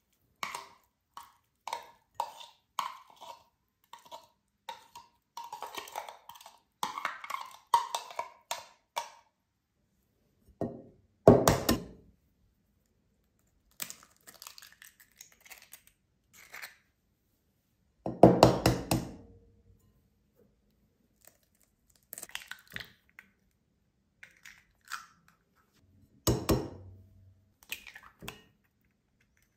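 Kitchen utensils and dishes at work during food preparation. A run of light, regular knocks, about two a second, goes on for the first nine seconds. After that come three loud clanks several seconds apart, with scattered small clinks between them.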